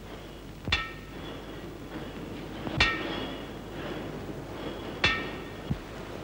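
Metal struck three times, about two seconds apart, each strike ringing briefly with a bell-like tone. A steady low hum from an old 1930s film soundtrack runs underneath.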